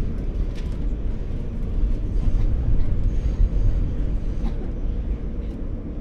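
New York City Q train subway car running along the track: a steady low rumble with a few faint clicks and rattles, swelling a little in loudness in the middle.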